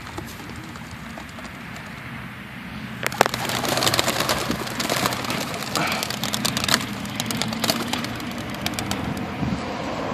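Racing pigeons taking off, a dense clatter of wing flaps starting suddenly about three seconds in and going on as the flock gets airborne.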